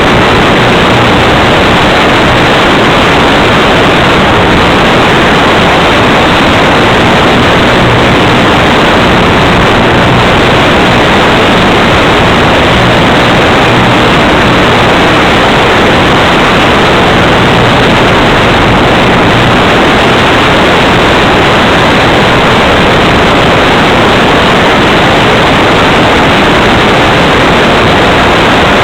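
Loud, unchanging hiss with a faint low hum beneath it.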